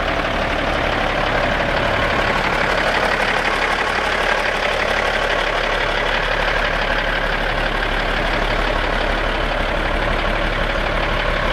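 1991 Peterbilt logging truck's diesel engine idling steadily.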